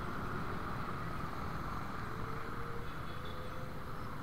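Steady engine and road noise of a motorcycle riding in dense scooter traffic, an even rumble and hiss with no sudden events.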